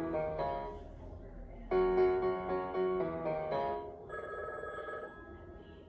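Cartoon soundtrack music of held keyboard chords in two short phrases. Then, from about four seconds in, a telephone bell ringing steadily.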